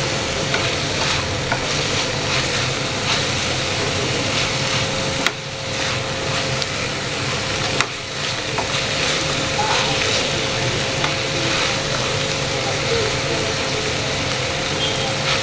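Chopped vegetables sizzling in a hot non-stick wok while a spatula stirs and scrapes through them: a steady frying hiss with small scraping clicks from the spatula.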